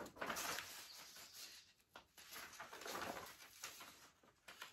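Loose sheets of printed paper rustling as they are lifted, shuffled and turned, in two soft spells.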